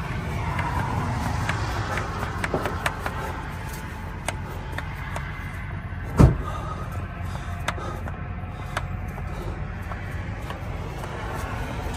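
Hand primer pump on a PACCAR diesel engine's fuel filter housing being worked again and again with a series of clicks, priming the fuel system after the truck ran out of diesel. A steady low rumble runs underneath, and there is a brief loud thump about six seconds in.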